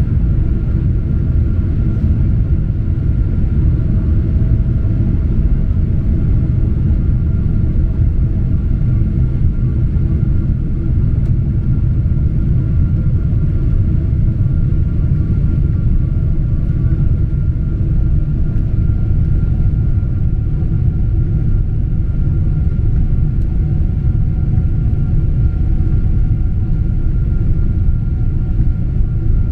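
Steady cabin noise inside a Boeing 777-200 airliner descending on approach to landing: a loud, deep, even rumble with faint steady hum tones above it.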